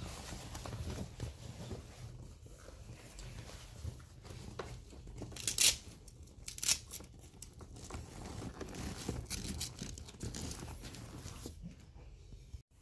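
Fabric cover being handled and tucked onto a massage chair, rustling throughout, with two short, sharp rips of Velcro strips about halfway through.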